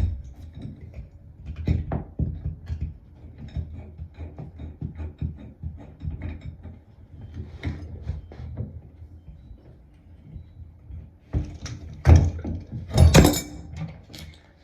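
Two pairs of pliers working a plumbing fitting, one holding and one turning: repeated small metal clicks and scrapes as the fitting is tightened, with two louder knocks near the end.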